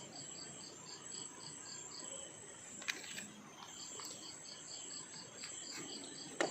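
Crickets chirping at night, an even pulse of about four chirps a second that pauses for a moment near the middle, over a continuous high insect trill. A couple of faint clicks.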